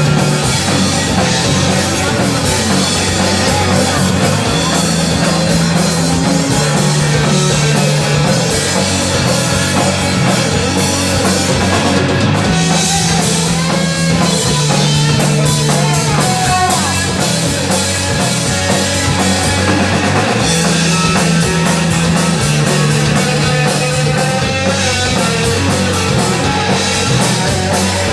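Rock band playing loud and steady, with drum kit, electric guitar and bass notes that change every second or two.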